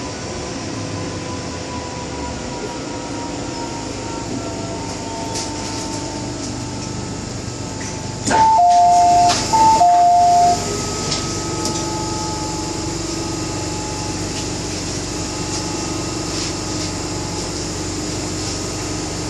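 MTR M-Train metro car running, with a steady rumble and a thin motor whine that slowly falls in pitch. About eight seconds in, a loud onboard two-tone chime sounds twice, each time a short high note then a longer lower one.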